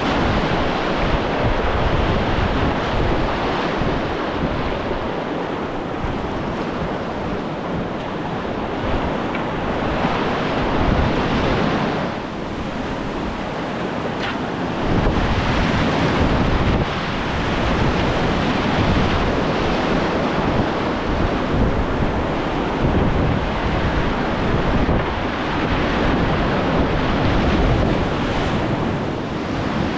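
Whitewater river rapids rushing steadily, with wind buffeting the microphone.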